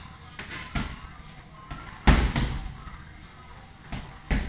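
Boxing gloves striking a double-end bag: about five sharp thuds at uneven intervals, the loudest a quick pair about two seconds in.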